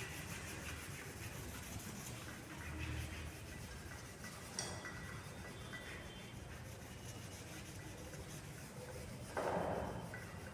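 Cloth being rubbed over a steel test piece, wiping it clean with solvent cleaner before magnetic particle testing: faint, steady rubbing, with a brief louder scuff near the end.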